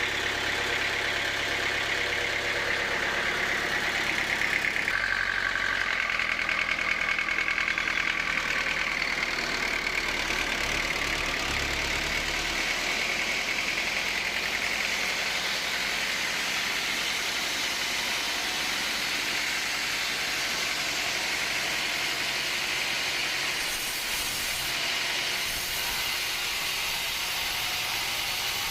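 Sawmill machinery running steadily: a motor's drone under a higher hissing whine. The low hum shifts about five seconds in and fades out about twelve seconds in.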